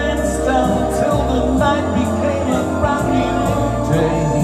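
A man singing into a microphone over an amplified backing track with sustained low bass notes.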